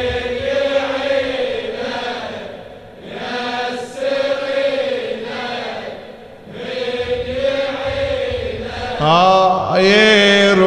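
Crowd of male mourners chanting a latmiya refrain in unison, in phrases about three seconds long with short breaks between them. Near the end a single male reciter's voice comes in loud over them.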